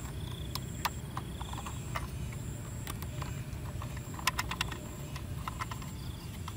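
Small screw being driven by hand screwdriver into a plastic toy truck chassis: irregular sharp plastic clicks and ticks, coming in quick clusters past the middle, over a steady low background rumble.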